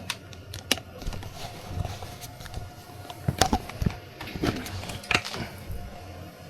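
Irregular sharp knocks and clicks, with a faint steady tone in the middle.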